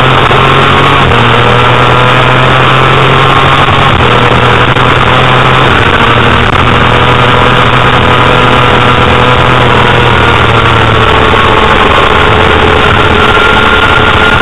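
Honda CBR250RR's four-cylinder engine running hard at high revs, heard onboard at racing speed, its pitch drifting gently up and down over a loud rushing noise.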